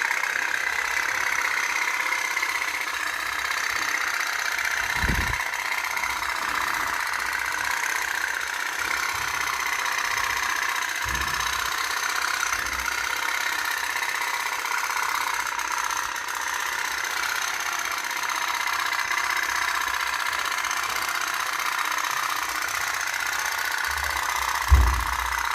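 Toy pop-pop (put-put) boat's little steam engine putting steadily, a fast continuous run of pops. A few low thumps come through, the loudest near the end.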